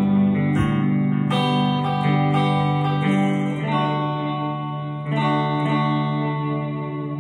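Orange hollow-body electric guitar played clean with a pick: chords struck every second or so and left to ring, the last bars of the song.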